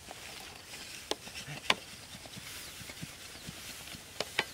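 Dry grass rustling as it is pulled apart by hand, with four sharp cracks of dry stems, two of them close together near the end.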